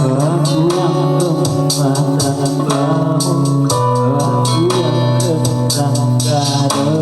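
Music with a steady beat and a melody line that wavers in pitch.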